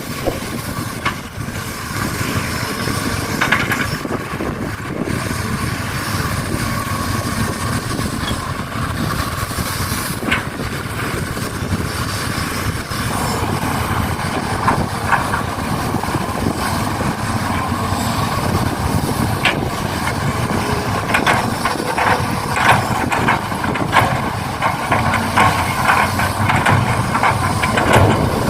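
Radio-controlled model excavator and truck working: steady motor and gear whirring with many scattered clicks and knocks, more of them in the second half.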